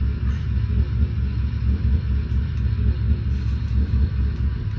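Broadway Limited Imports model diesel locomotive's onboard sound system playing a deep, steady diesel engine rumble through its subwoofer as the locomotive idles and starts to pull out.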